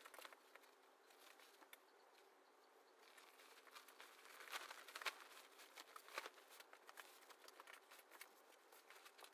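Faint rustling and crackling of fabric being unfolded, lifted and smoothed out flat by hand, with a few louder rustles around the middle.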